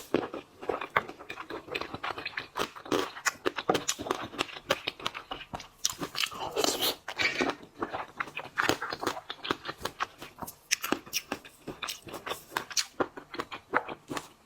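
Close-miked chewing and biting of seafood, a dense run of wet smacks and sharp crackling clicks throughout.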